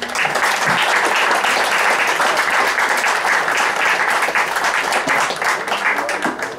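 A crowd applauding, starting all at once and thinning out near the end.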